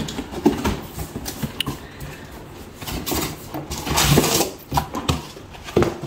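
Cardboard box being handled and opened: scattered knocks and scrapes, with a louder rustling scrape about four seconds in.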